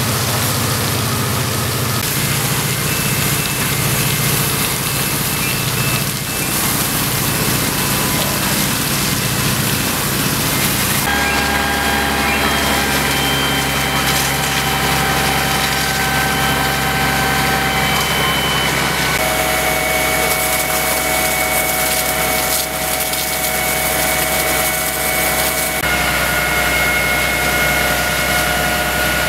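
Fire pump engines running steadily under load, feeding the hoses, over the hiss of water jets from the hose nozzles. The engine's tones change abruptly a few times.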